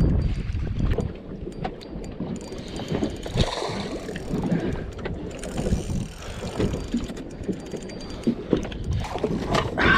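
Wind buffeting the microphone over an open boat, with scattered clicks and knocks from a spinning rod and reel being handled while a hooked smallmouth bass is reeled in.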